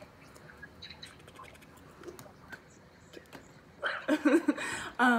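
A few faint clicks against low room tone, then a woman laughing out loud from about four seconds in.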